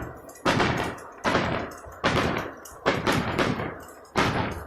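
Fireworks bursting: five sharp bangs about a second apart, each trailing off in a rumbling echo.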